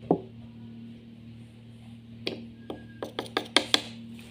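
Metal spoon knocking and clinking against a small stainless-steel bowl and clay pot while a sticky mixture is spooned out: one knock at the start, then a quick run of sharp, ringing clinks two to four seconds in.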